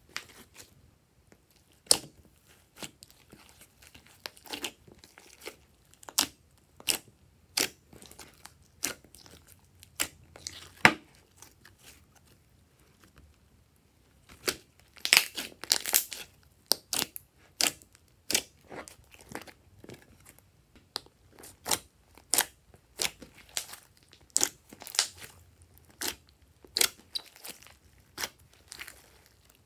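Glossy slime squeezed and stretched by hand, giving irregular sharp clicks and pops, with a quick run of them about fifteen seconds in.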